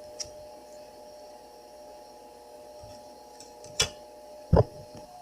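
Two sharp clicks of the plastic spools of a new typewriter ink ribbon being handled, one nearly four seconds in and a louder one just after, over a steady faint hum.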